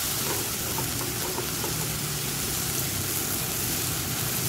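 Marinated lamb sizzling and frying in a hot pan over a portable gas stove: a steady, even hiss, with a faint low hum underneath.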